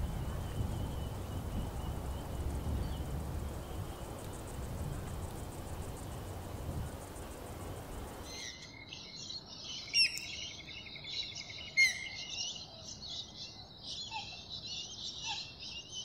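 Steady low outdoor background noise, then from about eight seconds in a dense chorus of wild birds chirping and calling, with two sharp louder notes near the middle of that stretch.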